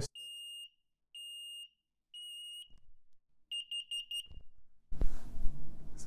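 X-Sense SC07-WX smoke and carbon monoxide alarm running its self-test: three long, high, steady beeps about a second apart, the three-beep smoke-alarm pattern, then a quick run of short beeps. A louder rush of noise comes near the end.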